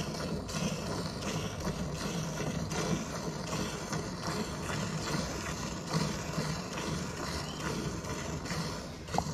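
Hand-milking: rhythmic squirts of milk, drawn by alternating hand strokes, hissing into the froth of a steel pail that is nearly full.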